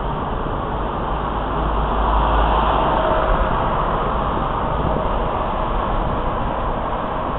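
Wind and road noise in a moving convertible car, with a steady low rumble underneath; it swells a little louder for a couple of seconds about two seconds in.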